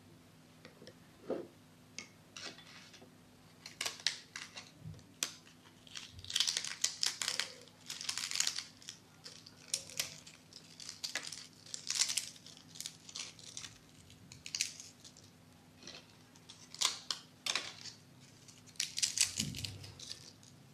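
Crisp fried Arabic bread being broken up by hand, crackling and crunching in irregular bursts as the pieces snap.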